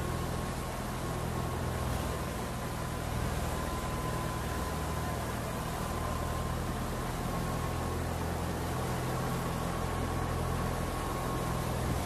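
Wheat thresher running steadily while sheaves of wheat are fed into it. A constant low hum with a steady high whine over an even hiss, unchanging throughout.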